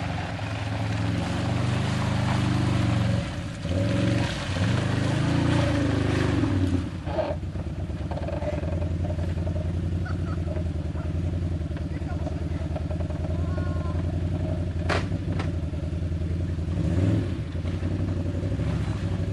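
Quad bike engine revving hard while stuck in deep mud, in two long bursts with a short break a little after three seconds. About seven seconds in it settles to a steady idle. A single sharp knock comes about fifteen seconds in.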